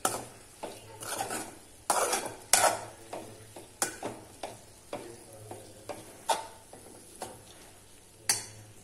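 Spatula stirring and scraping a banana flower stir-fry (vazhaipoo poriyal) around a pan, about two strokes a second, over a light sizzle: the cooked lentils just added are being mixed in.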